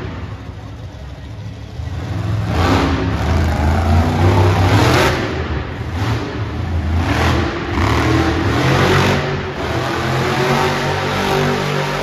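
Monster truck engine revving in repeated surges over a steady low engine rumble, building about two seconds in and again around seven seconds.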